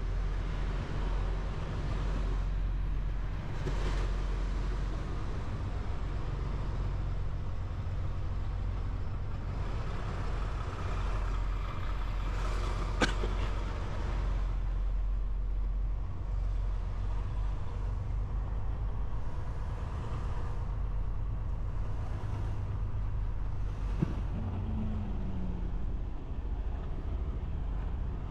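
Semi-truck engine running with a steady low drone. Two sharp clicks sound over it, one near the middle and one about four-fifths of the way through.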